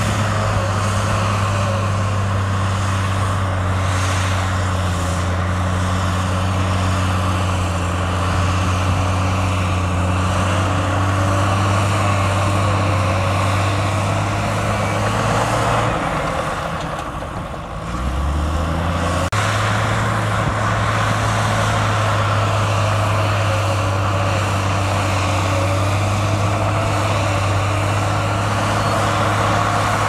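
Heavy earthmoving machine's diesel engine running steadily at a constant low pitch. About 16 seconds in, the note drops and the sound weakens briefly, then returns to the same steady pitch some three seconds later.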